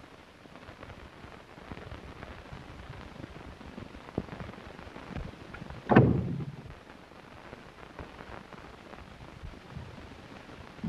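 Crackling hiss of an old 1930s film soundtrack, with a small knock about four seconds in and one loud thud about six seconds in.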